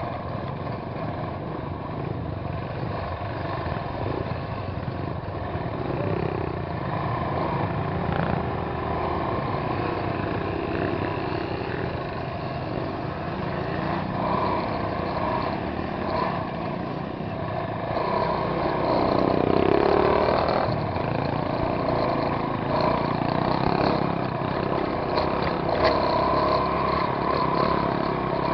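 Trail motorcycle engine running at low speed over rough dirt track, revs rising and falling with the throttle, with a louder rev about two-thirds of the way through.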